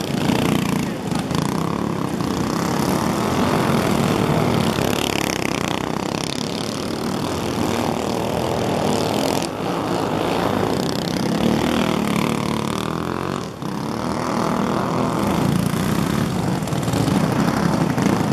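Several go-kart engines running hard around a dirt track, their buzz swelling and fading and rising and falling in pitch as karts accelerate out of turns and pass close by.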